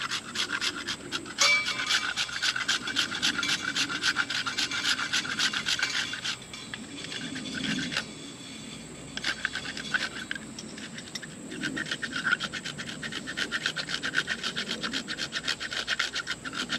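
A piece of fatwood being shaved on a small handheld grater-like fatwood shaver: rapid, rhythmic scraping strokes, pausing briefly a few times, as resinous pine shavings are made for tinder.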